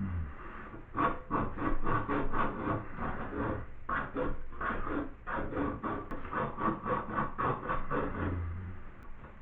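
Rapid back-and-forth scrubbing strokes on metal, about five a second, steady throughout: copper plumbing being cleaned with an abrasive to prepare it for flux and solder.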